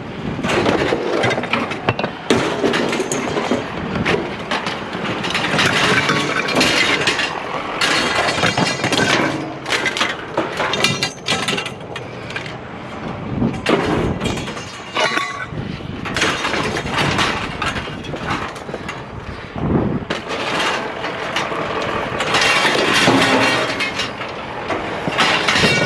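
Scrap metal being unloaded from a trailer and tossed onto a scrap pile: an irregular run of clattering crashes and clanks, some pieces ringing after they land.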